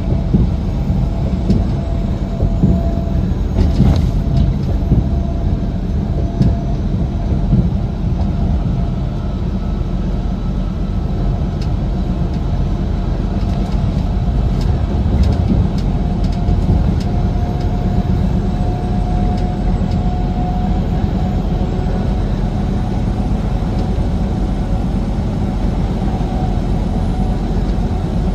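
Steady low rumble of a truck on the move, heard from inside the cab: engine drone and road noise with a faint steady whine. A few sharp clicks come about four seconds in and again around the middle.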